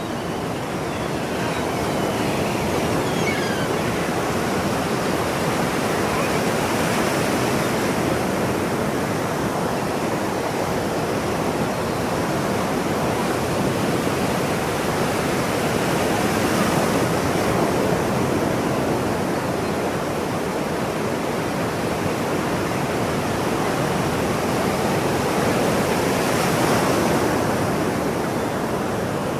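Ocean surf washing steadily, the hiss swelling and easing about every ten seconds as waves break.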